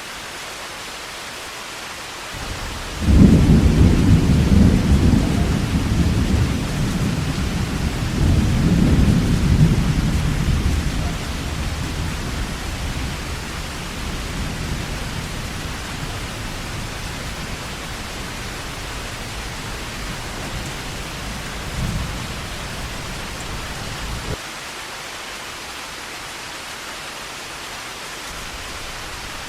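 Steady heavy rain hissing, with a clap of thunder breaking in about three seconds in and rolling on in two swells before fading away over the following several seconds.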